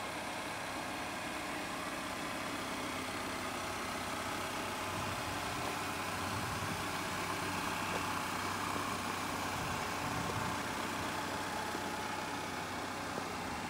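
A car engine idling steadily, a low even hum with no revving.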